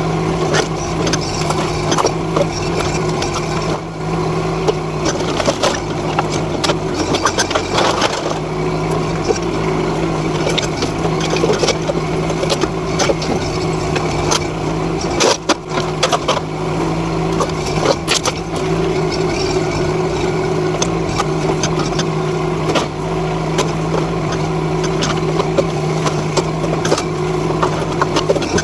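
NT18K mini excavator's engine running steadily as the machine works, with frequent knocks, clanks and cracks of wood and sheet-metal debris being handled.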